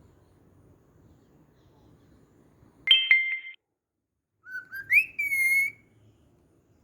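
Cockatiel whistling: a short, sharp two-toned call about three seconds in, then a longer whistle that rises in pitch and holds steady before cutting off.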